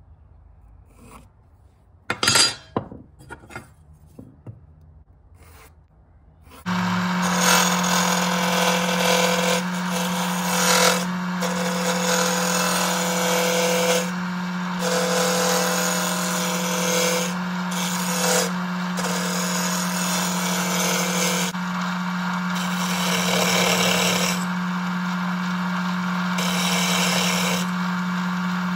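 Small wood lathe turning a wooden blank: a steady motor hum under the scraping of a turning tool cutting the wood, the cutting dropping out and coming back several times as the tool is lifted and set again. Before the lathe starts, a few seconds in, there are a few sharp knocks.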